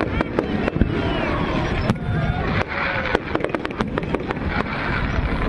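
Fireworks going off: a rapid, irregular run of sharp cracks and bangs over a continuous crackle.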